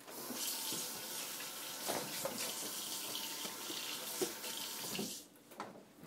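Kitchen tap running into a stainless-steel sink as hands are rinsed under the stream. The water stops about five seconds in, and a couple of short knocks follow.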